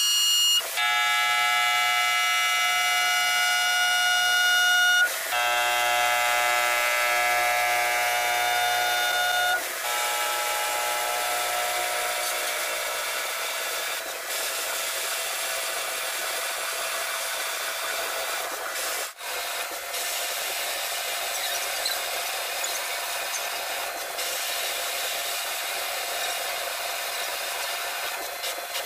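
CNC lathe turning a steel bar supported by a tailstock live center, the insert tool cutting with a ringing whine of several pitches that shifts twice in the first ten seconds. After that the cut goes on as a steadier rasping noise, with a brief break about nineteen seconds in.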